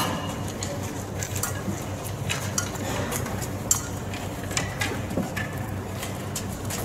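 Irregular light clinks and knocks, with a sharper knock at the very start, over a steady low hum: actors handling the cross as they take the body down from it.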